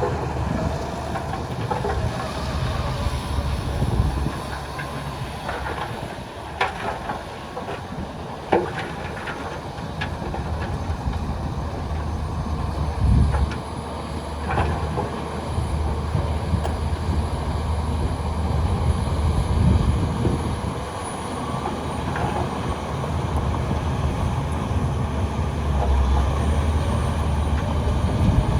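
Heavy diesel earthmoving machinery running with a steady low rumble, punctuated by several sharp clanks or cracks.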